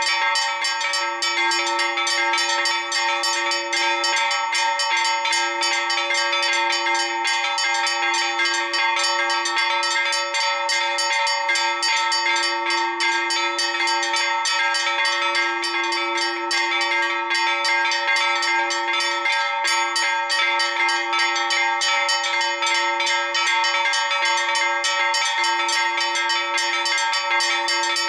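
Four church bells rung together in a fast, continuous Maltese festa peal, their strikes following one another in rapid succession without a pause. The largest of the bells was cast in 1828.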